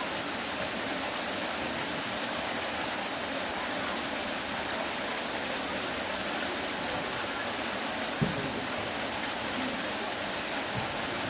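Steady rush of running water, with one short thump about eight seconds in.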